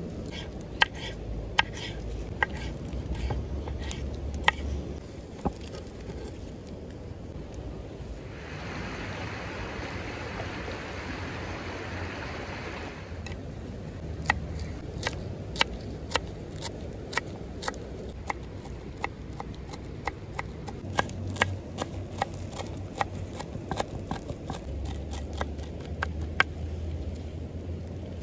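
Knife chopping on a wooden cutting board: a few separate cuts through tomato at first, then fast, repeated chopping through fresh dill, several strikes a second, from about halfway on. A few seconds of louder hiss come in the middle, over a steady background noise.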